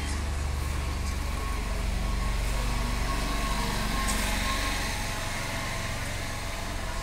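An engine running steadily with a low rumble, with a hissing noise that swells about four seconds in.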